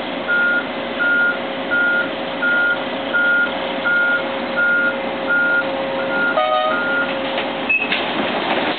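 Excavator travel alarm beeping about ten times at an even pace, roughly every 0.7 seconds, over the steady running of the Sumitomo excavator's diesel engine. The beeping stops near the end, followed by a short knock.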